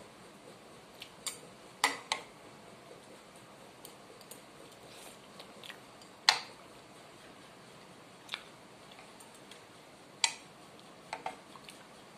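Metal spoon and fork clinking against a ceramic plate and bowl while eating: about eight sharp, separate clicks, the loudest about six seconds in, with quiet chewing between them.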